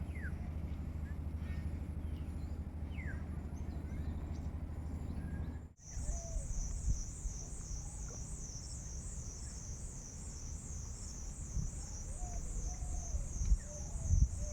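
Outdoor nature ambience with birds chirping over a low steady hum. About six seconds in, the sound changes abruptly to a loud, high-pitched buzz pulsing about three times a second over a low rumble, with a few more short bird calls.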